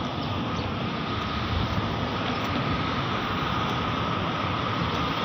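Steady road traffic noise from passing cars on a multi-lane road, with wind rumbling on the microphone.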